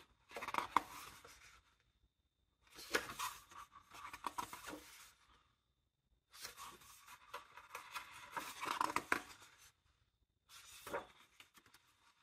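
Paper pages of a large art book being turned and smoothed by hand: four bouts of rustling and sliding paper with short silences between.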